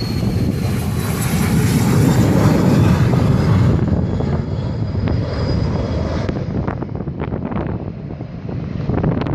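Learjet 60's twin turbofan jet engines at takeoff power as the jet rolls past and climbs away: a loud jet roar that peaks about two to three seconds in and then fades, with a high whine dropping slightly in pitch as it goes by.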